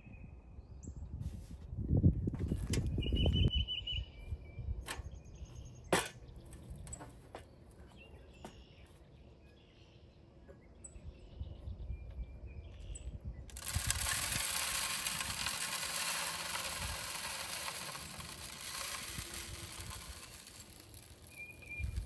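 Birdseed poured from a canister into the top of a bird feeder: a steady hiss of running seed that starts about halfway through and lasts about six seconds. Before it come a few knocks and clicks of handling and a brief low rumble, and birds chirp now and then.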